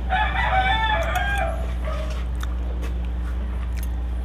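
A rooster crowing once, a wavering call of about two seconds right at the start. Afterwards, light clinks of a spoon and fork on a plate.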